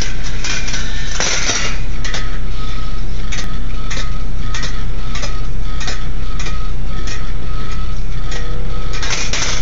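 Stainless steel rolling ball sculpture running: steel balls rolling along wire tracks with frequent metallic clicks and clinks, over a steady low hum. A thin ringing tone of a ball rolling on the rails holds for several seconds in the middle, and denser rattles come about a second in and near the end.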